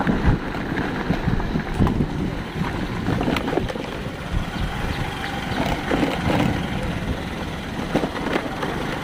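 Wind buffeting the microphone over a steady low rumble, with irregular gusts.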